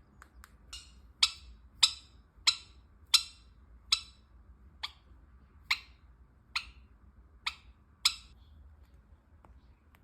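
A parrot knocking at a toy: about a dozen sharp, briefly ringing knocks, roughly one every half second or so, loudest in the first half and ending about eight seconds in.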